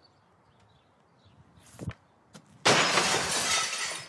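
A hockey stick cracks against a puck, and under a second later glass shatters in a loud crash that fades over about a second: the shot has broken glass.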